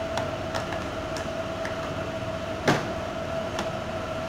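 A steady background hum holding one even tone, broken by a few light clicks and one sharper knock about two and a half seconds in, as when containers are handled on a kitchen counter between adding seasonings.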